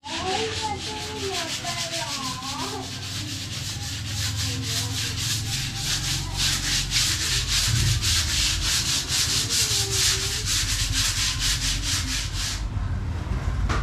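Dried skim-coat putty patches on a wall being hand-sanded, fast, even back-and-forth scraping strokes that stop shortly before the end; this sanding smooths the patches flush over paint that had bubbled and been scraped off.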